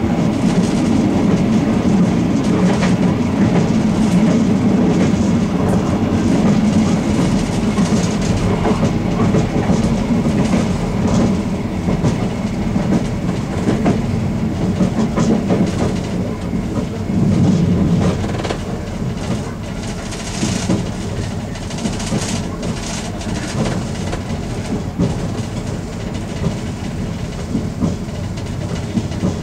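Ganz-Mavag electric multiple unit running at speed, heard from inside its rear cab: a steady rumble of wheels on rail that eases a little just past halfway, with a run of sharp clicks about two-thirds of the way through.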